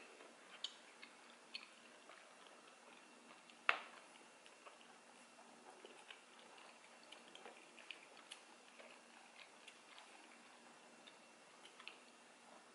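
Quiet eating sounds: soft chewing with scattered light clicks of wooden chopsticks and a spoon against a metal pan. One sharper click comes about four seconds in.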